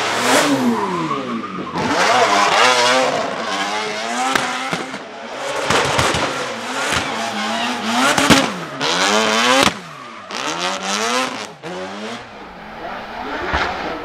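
Twin-turbo four-rotor rotary engine in a Nissan Silvia S15 race car, revved up and down again and again as it drifts, with sharp cracks between the revs and tyre squeal. It drops to a quieter, more distant sound about ten seconds in.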